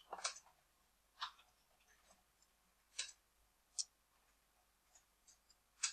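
Computer mouse clicking: about five faint, sharp, separate clicks a second or so apart.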